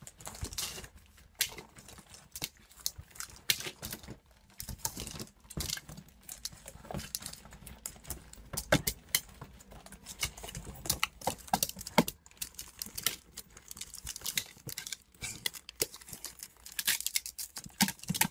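A dog rummaging in a clear plastic storage bin full of wrapping-paper rolls and tissue paper. Irregular crinkling and rustling of paper, with sharper knocks and clicks against the plastic scattered throughout.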